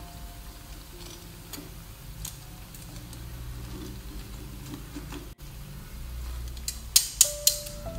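Coated cassava pieces frying in hot oil in a nonstick pan, with metal tongs clicking against the pan as the pieces are turned and lifted. A few sharp clicks come close together about seven seconds in.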